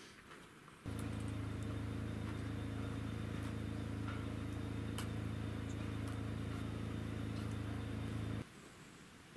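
A steady low engine hum at constant pitch, starting suddenly about a second in and stopping suddenly near the end.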